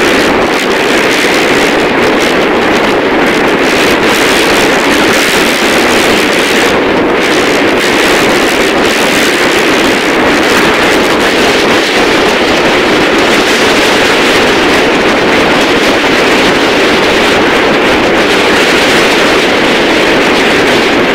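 Strong wind blowing steadily across the microphone, a loud, even rushing noise.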